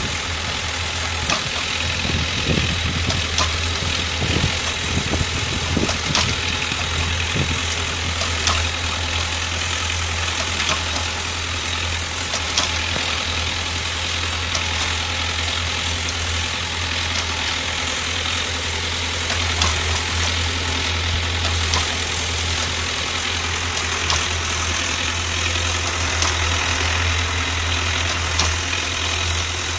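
Tractor engine running steadily as it drives a PTO-powered Calderoni FPS55 in-row rotary cutter tilling soil around fruit-tree trunks, a constant low hum with scattered sharp clicks throughout.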